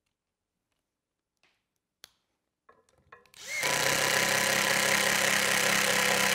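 Cordless impact driver with a long square-drive bit driving a screw through a steel hairpin-leg plate into a maple burl slab. A few light clicks, then about three and a half seconds in the driver starts and runs loud and steady.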